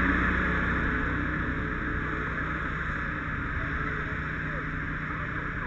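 Fire engines' engines running with a steady drone, growing gradually fainter.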